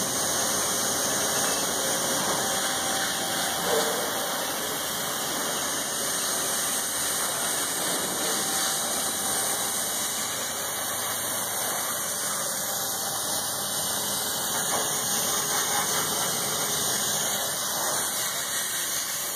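Plasma torch of a PROFAB Plasma Pro IV CNC plasma table cutting sheet metal, giving a steady, unbroken hiss of the plasma arc and its compressed air.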